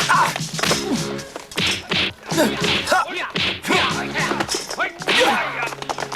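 Action-film soundtrack: a rapid run of sharp hits, cracks and whooshes with short cries, over a score holding steady notes.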